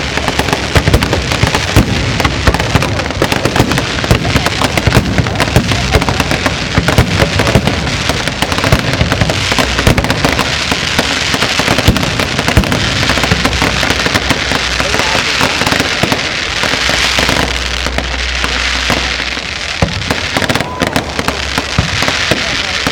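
Fireworks display going off: a rapid, continuous run of bangs and crackles from bursting aerial shells, with a steady hissing crackle in the later part.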